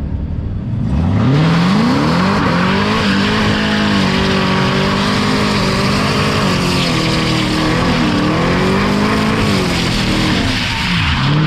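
Supercharged 6.2-litre V8 from a ZL1 Camaro revving hard and held at high revs through a burnout, rear tyres spinning and squealing on the pavement. The revs climb about a second in, then hold with a couple of brief dips, around two-thirds of the way through and near the end.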